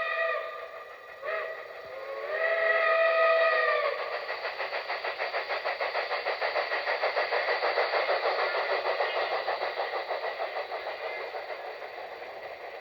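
Steam locomotive chime whistle blowing a chord: a long blast ending, a short toot, then another long blast, the end of a grade-crossing signal. The locomotive then passes with a rapid rhythmic beat of about six a second that slowly fades. It is an old wire-recorder recording, thin and without bass.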